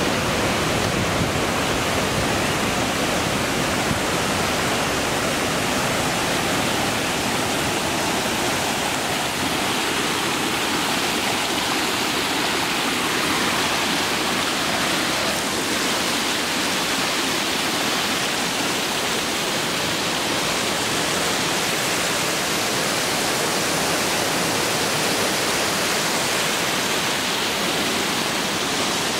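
Storm floodwater rushing in a steady, unbroken torrent, swollen by days of torrential rain.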